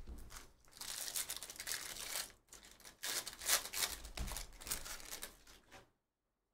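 Foil wrapper of a Bowman Draft baseball card pack being torn open and crinkled, crackling in two spells with a short lull between them, then stopping abruptly near the end.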